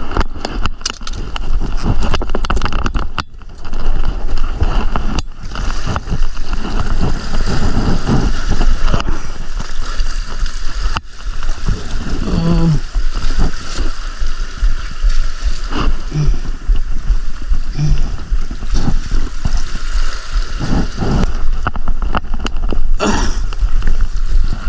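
Seawater sloshing and gurgling at the shoreline, loud and irregular, over a steady low rumble.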